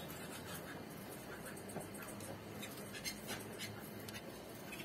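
Faint scratching and light scattered clicks from canaries moving about in wire cages, with no steady tone.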